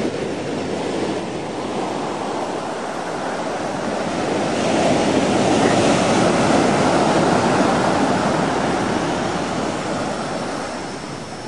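Ocean surf breaking and washing up a sandy beach, swelling to its loudest around the middle and easing off near the end.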